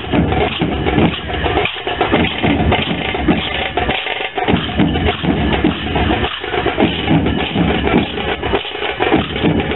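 Rhythmic music led by drums and percussion, playing loudly and without a break.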